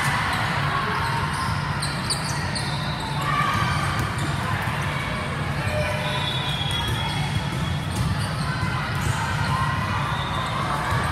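Echoing sports-hall ambience during volleyball play: volleyballs slapping and bouncing on the courts, short sneaker squeaks and a hum of voices in the large hall.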